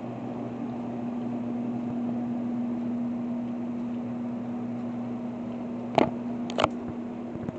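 Steady low electrical hum with a fan-like hiss, like a running appliance or fan in the room. Two sharp clicks come close together about six seconds in.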